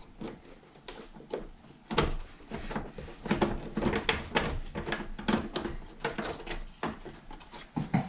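Small clicks and scrapes of a T8 Torx screwdriver backing two screws out of the hard-drive mount inside an opened iMac, coming as an irregular run of ticks from about two seconds in.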